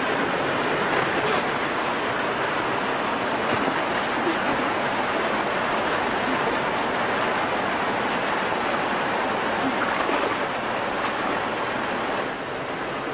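Steady rush of river water, softening slightly near the end.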